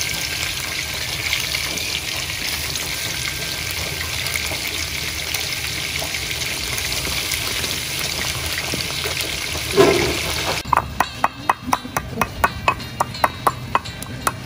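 Catfish frying in hot oil in a wok: a steady sizzle. About ten seconds in, it gives way to a wooden pestle pounding garlic and chili in a ceramic bowl, with regular thumps about three a second.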